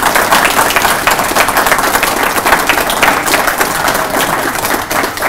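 A small audience of a few dozen people applauding, with dense, steady clapping.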